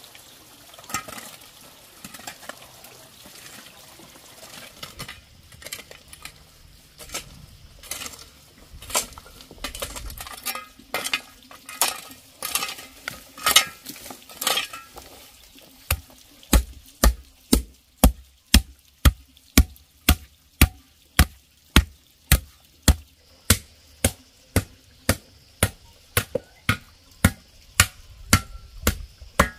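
A hoe scraping and dragging through dry, stony soil, with irregular scrapes and the clink of small stones. From about halfway in, the hoe is driven down into the packed ground in steady blows, about two a second.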